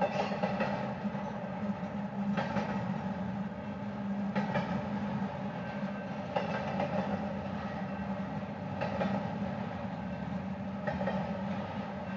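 Intermodal freight train cars rolling past at steady speed: a continuous rumble of steel wheels on rail, with a short click about every two seconds as wheelsets pass.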